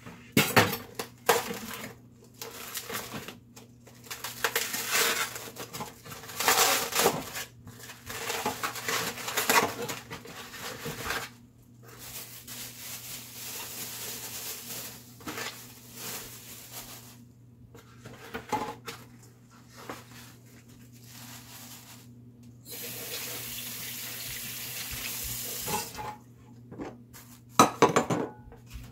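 Plastic packaging rustling and crinkling as it is cut open and pulled off fish at a stainless steel sink, with knocks and clatters of dishware. A tap runs steadily for about three seconds near the end.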